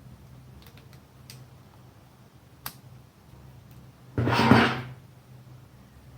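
Handling noises of hand-wiring push-button terminals: a few faint clicks and taps, a sharper click near the middle, and one brief louder scrape or rustle a little after four seconds in, over a low steady hum.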